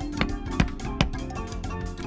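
Background music: a light instrumental tune with a few sharp percussive taps.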